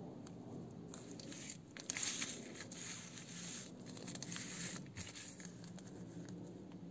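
Clear plastic zip-lock bags filled with soil crinkling and rustling as they are handled and moved by hand, in irregular spells, loudest about two seconds in.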